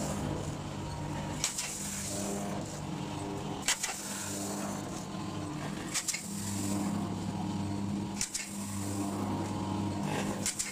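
Automatic vertical form-fill-seal packing machine running while bagging rice: a steady motor hum, with a sharp click at each bagging cycle, five times about every two and a quarter seconds.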